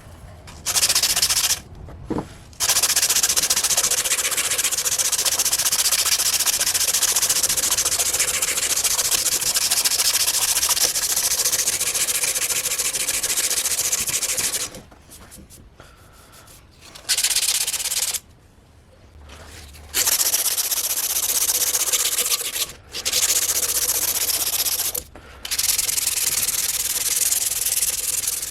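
Sanding, a steady, loud scratchy hiss in long runs that stop several times, most notably for a few seconds about fifteen seconds in.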